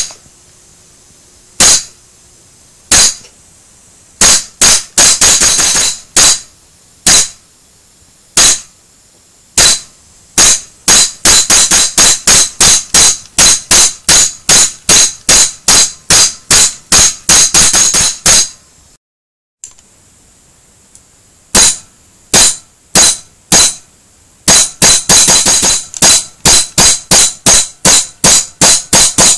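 WE-tech SCAR-based Walther WA2000 gas blowback airsoft rifle firing single shots, each a sharp crack. At first they come a second or more apart, then speed up to about two a second, with a brief break just past the middle.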